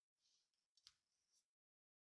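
Near silence: a very faint hiss that drops to dead silence about one and a half seconds in.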